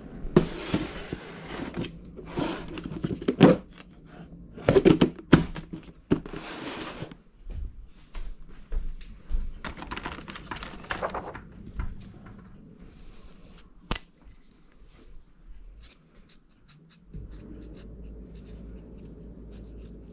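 Hands handling household items on a kitchen counter: a series of short rustling and scraping noises, then light clicks and taps as pens are rummaged in a plastic pocket. A low steady hum comes on near the end.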